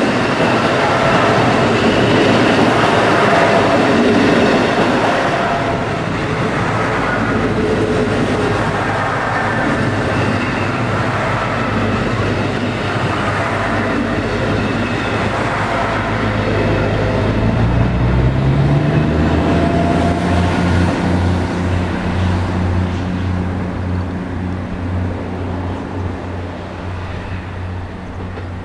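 Diesel railcar train (JR Central KiHa-series DMU) moving away: wheels clattering over rail joints and running noise that slowly fade. About 18 seconds in, a low diesel engine hum rises in pitch and then holds steady.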